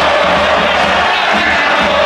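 Large crowd of football ultras singing a chant together: a loud, steady wall of massed voices.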